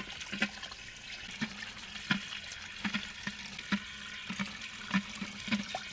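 Water running from a tap into a sink, with frequent irregular knocks and clacks of hard items being handled and washed under it.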